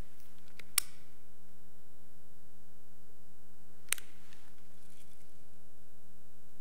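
Two sharp clicks about three seconds apart, a handheld lighter being sparked to light an altar candle, over a steady electrical hum.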